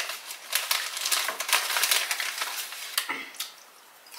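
Crinkling of a foil-lined kettle-chip bag being folded and rolled closed, a dense run of crackles lasting about two and a half seconds.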